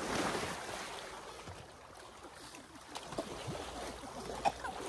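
Pool water splashing as someone goes under, then sloshing and lapping more faintly against the pool wall.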